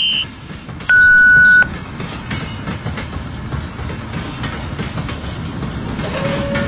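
Toy train running along its track with a steady rattling rumble and faint clicks, after a loud single electronic beep lasting under a second about a second in.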